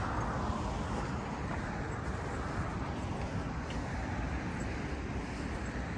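Steady outdoor background noise: a low rumble with an even hiss, after a brief rush of noise in the first second.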